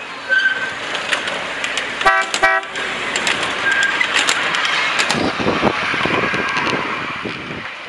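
Miniature streamliner-style park train passing close by: two short horn toots about two seconds in, then the rumble and rapid clicking of its cars' wheels on the track, fading near the end.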